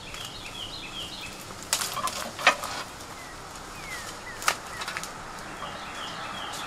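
Footsteps through dry undergrowth, with twigs and debris snapping underfoot in a few sharp cracks, loudest in the middle. A songbird sings quick runs of high chirps near the start and again near the end.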